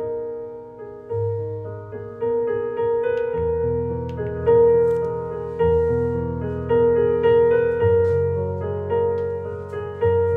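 Background piano music: a melody of single notes over held bass notes that change every couple of seconds.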